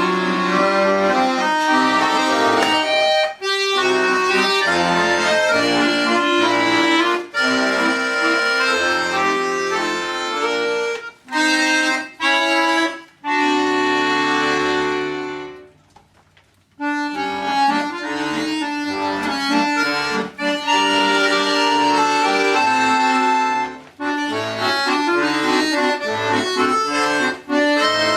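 A quartet of bayans, Russian button accordions, playing a waltz in full sustained chords. About halfway through a held chord fades away into a brief pause, then the ensemble comes back in.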